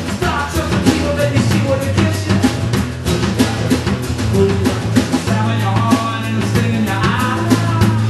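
Live rock band playing: a drum kit keeping a steady beat under strummed acoustic guitar and electric guitar.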